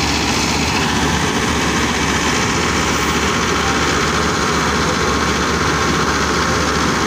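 Combine harvester running at working speed: a steady, loud engine and machinery noise with no breaks or changes.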